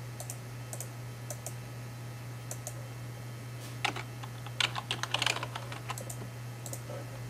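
Typing on a computer keyboard: a few scattered taps, then a quick flurry of keystrokes about four seconds in, over a steady low hum.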